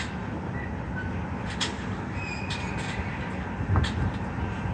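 Steady low rumble of construction machinery and road traffic at a large excavation site, with a few sharp metallic clanks, the loudest near the end.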